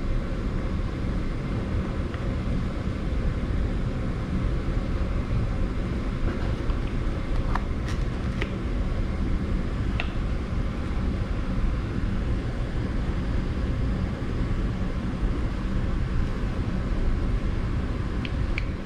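Steady low rumbling background noise, with a few light clicks scattered through it.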